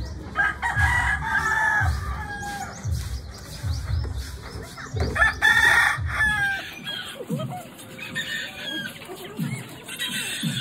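Rooster crowing twice, about half a second in and again around five seconds in, each crow lasting about a second. Repeated dull low thumps sound underneath during the first six seconds.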